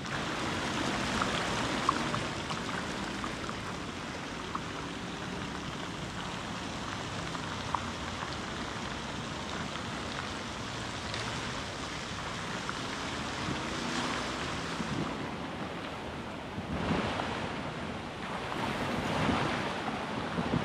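Steady rushing wash of fountain water and road traffic, with two louder swells near the end.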